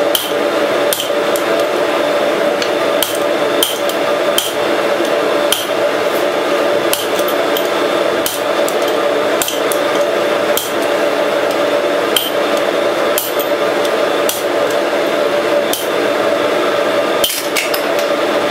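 Hand hammer striking a red-hot steel bar laid across a hardy cutter on an anvil, driving it onto the cutting edge to nick the bar: sharp metallic blows at an uneven pace, roughly one a second, some in quick pairs. A steady hum runs underneath.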